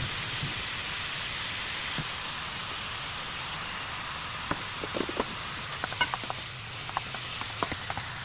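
Food sizzling steadily in a hot frying pan, with scattered light clicks from about halfway through.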